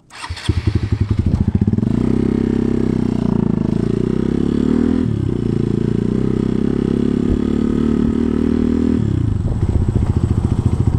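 Hero Xpulse 200 4V motorcycle's single-cylinder engine running loud and steady through a modified free-flow exhaust. There is a brief dip in pitch about halfway, like a gear change, and the revs fall near the end.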